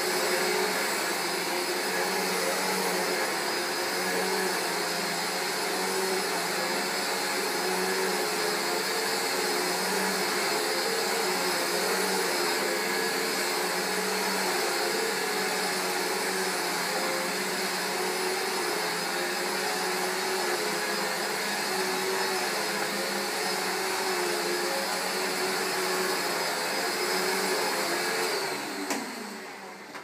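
Panasonic MC-E47 upright vacuum cleaner's 700 W motor running steadily as it is pushed back and forth over a rug, its tone wavering slightly with the strokes; the machine has been freshly serviced with a new brushroll. About a second before the end it is switched off and the motor winds down in falling pitch.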